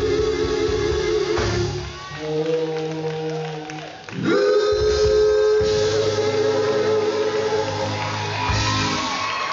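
Live gospel quartet singing over a band of electric guitar, bass, drums and keyboard. A long held note eases off about two seconds in, then a voice slides up into another long held note, and a higher note rings out near the end.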